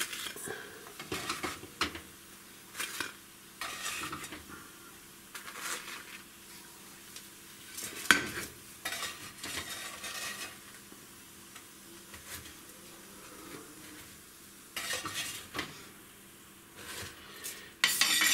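Plastic slotted spatula scraping and knocking against a nonstick frying pan and a plate as cooked semolina flatbreads are lifted out, in irregular short bursts, the sharpest knock about eight seconds in and a louder clatter near the end. A faint sizzle runs underneath.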